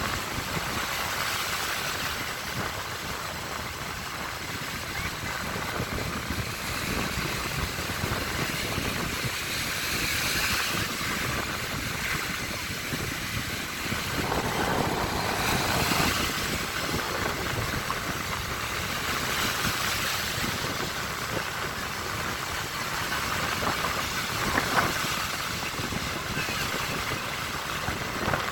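Baltic Sea waves washing onto the shore in a steady rush, swelling in surges about every five seconds.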